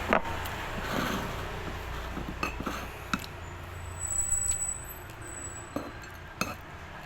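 Scattered light clinks and knocks of utensils against dishes, over a low steady hum.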